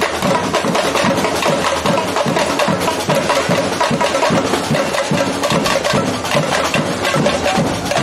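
Carnival street percussion band playing a fast, driving drum rhythm on marching bass drums and snare drums, loud and unbroken.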